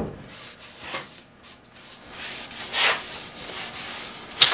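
A paint brush swishing as it brushes water-based polyurethane onto plywood, the rubbing strokes starting about two seconds in. A sharp click sounds just at the end.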